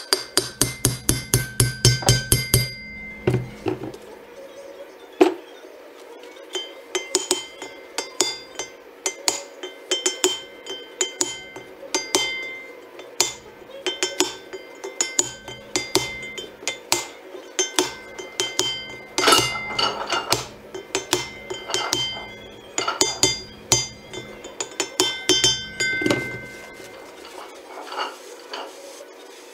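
Hammer tapping a punch against the John Deere 4755 wheel hub housing to seat new bearing parts, each blow ringing like metal. It opens with a fast run of about seven blows a second, goes on in slower spaced taps with a louder flurry a little past the middle, and thins out near the end.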